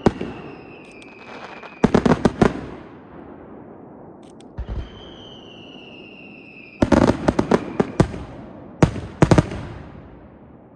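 Aerial fireworks shells bursting in rapid clusters of sharp bangs, several groups a second or two apart, with two long whistles between them that fall slightly in pitch.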